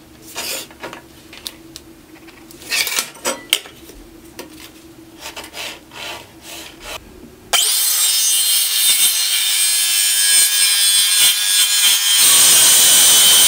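Light scratching and taps of marking out on a plastic sheet with a marker and metal square. About halfway in it gives way abruptly to a cordless circular saw cutting steadily through a UHMW polyethylene sheet, which is the loudest sound.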